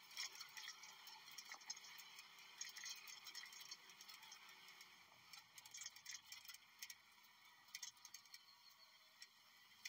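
Near silence with faint, irregular ticks and clicks.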